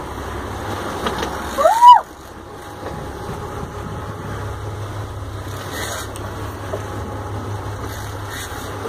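Sportfishing boat's engine running steadily under wind and water noise, with a short shout that rises and falls about two seconds in.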